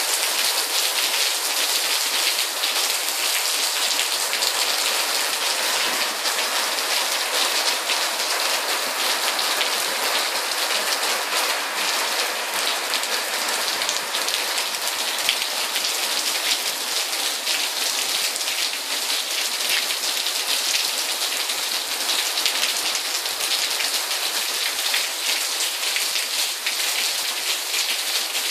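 Rain shower falling steadily on a concrete terrace and puddled ground: a dense, even hiss of many drops.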